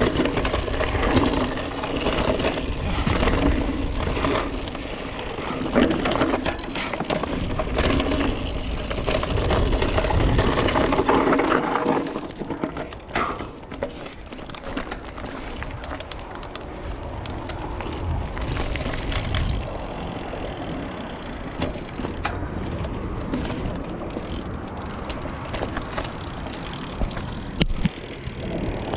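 A 2020 Polygon Siskiu D7 mountain bike being ridden over a rocky trail: tyres rolling and crunching over loose stones, with many knocks and rattles. About twelve seconds in the noise drops and smooths out as the ground gets smoother.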